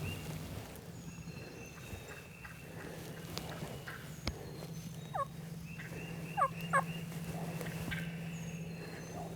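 Wild turkey gobbler gobbling close in, with quick falling calls about five seconds in and twice more a second or so later, among faint songbird calls.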